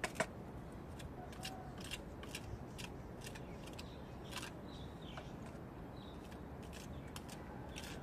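A trowel scraping wet plaster out of a small bucket and spreading it on a rough concrete-block wall: scattered light scrapes and clicks at an uneven pace.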